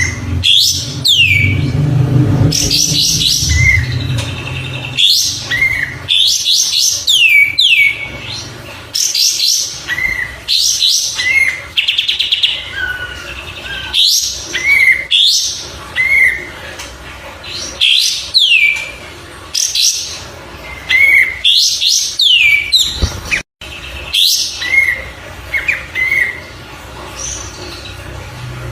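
Kapas tembak, a small bulbul, singing loud, repeated phrases every second or two. Each phrase mixes quick high chirps, steeply falling whistles and short rising notes.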